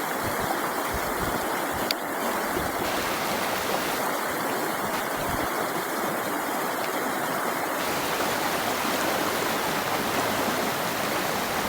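Water of a trout stream running steadily into a deep pool, an even rushing sound.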